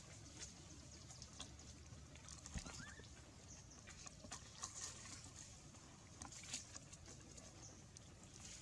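Near silence: faint scattered rustles and crackles of dry leaf litter, with one short faint rising squeak about three seconds in.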